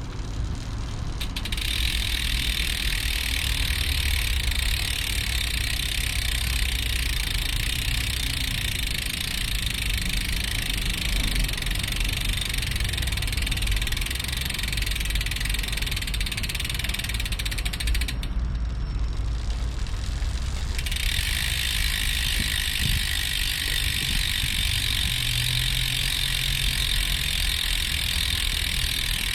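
Campagnolo Shamal Mille rear freehub buzzing steadily as the wheel freewheels, its pawl clicks merged into one continuous whir. It cuts out for about two and a half seconds past the middle, then comes back.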